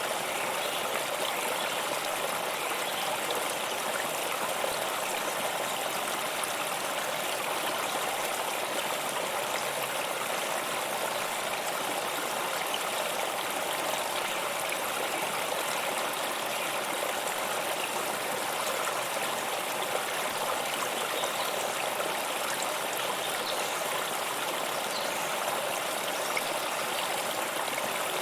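Waterfall's falling water rushing with a steady, unchanging hiss.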